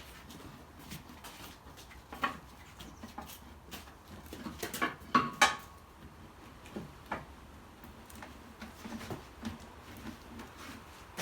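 Metal tyre levers and the tyre changer clinking and knocking against the steel wheel rim as the tyre is levered onto it, with scattered clicks and a run of sharper metallic hits about five seconds in.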